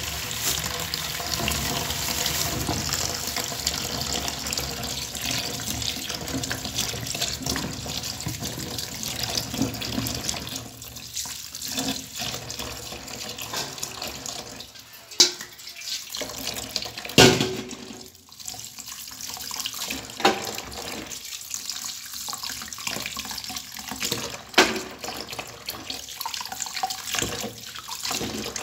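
Kitchen tap running into a plastic bowl in a steel sink while okra pods are washed under the stream. The water is a steady rush, louder in the first few seconds, then softer with a few sharp knocks from the pods and bowl in the second half.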